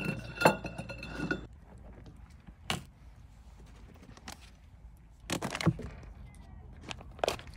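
Hollow metal stove leg tubes clinking together, ringing briefly for about a second and a half. Then comes a single knock, and a few scattered knocks and rustles of handling later on.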